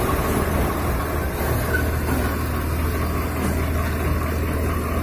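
Diesel engines of a Swaraj 855 and a Mahindra 255 tractor running steadily with a low drone.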